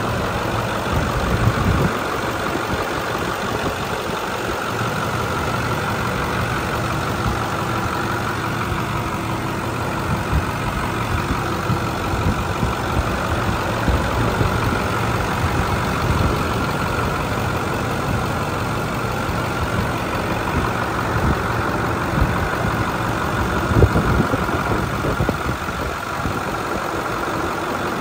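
Ford 6.4-litre Power Stroke V8 turbo diesel idling steadily, heard close up over the open engine bay.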